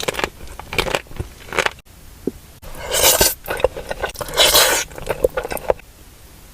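Close-miked eating: a dessert being bitten and chewed, with short clicks and two longer crunchy rasps about three and four and a half seconds in.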